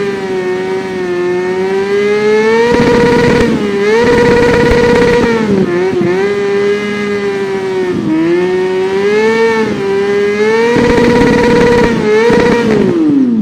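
Kawasaki Ninja 400 parallel-twin engine running loud at high revs, its pitch dipping and climbing again several times as the revs change. Near the end the revs fall away sharply.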